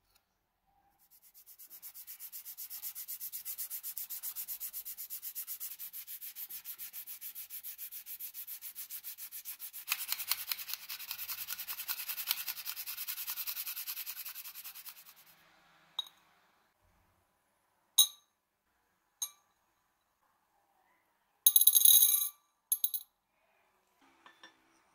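Sandpaper rubbed by hand in rapid back-and-forth strokes over hardened metal filler on a padlock body, a continuous rasping that grows fuller and louder partway through before stopping. Then a few sharp, separate clicks and a brief rattling cluster of small hard parts.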